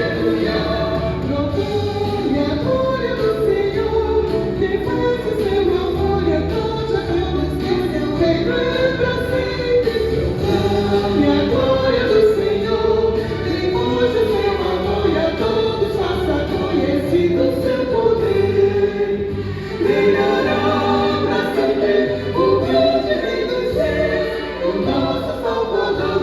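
Vocal ensemble singing a Christian gospel song in harmony.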